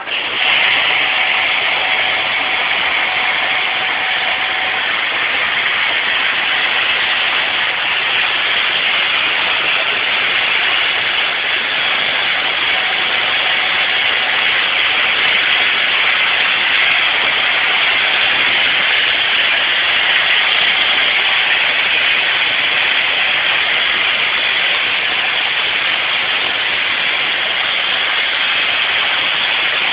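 Motoman robots' MIG welding arcs running on steel stove parts: a loud, steady hiss that starts abruptly as the arc strikes and carries on without a break.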